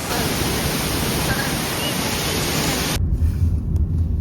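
A steady roar of rushing water, from falling water or surf. About three seconds in it cuts off abruptly to wind buffeting the microphone, heard as a gusty low rumble.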